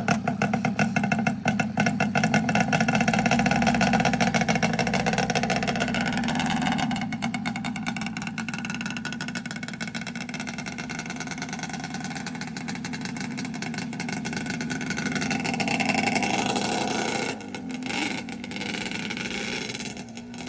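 Yamaha Banshee 350's twin-cylinder two-stroke engine being revved hard as the ATV pulls away, held on the throttle, then fainter as it rides off, with a swell in engine noise about three-quarters of the way through.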